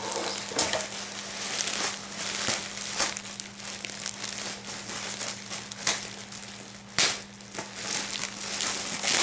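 Clear plastic bag wrapped around a folded garment crinkling as it is handled, in irregular crackles with a sharper rustle about seven seconds in.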